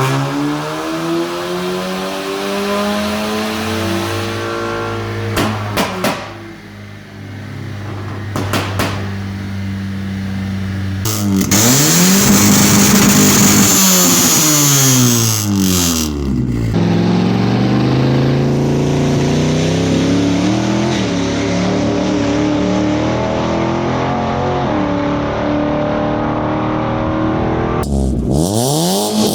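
Modified car exhausts revving in a run of short clips: engine pitch falling away, a few sharp pops from the exhaust around five and nine seconds in, then revs swinging up and down and a long stretch of hard revving. The pops are the deliberate pops and bangs of a tuned exhaust.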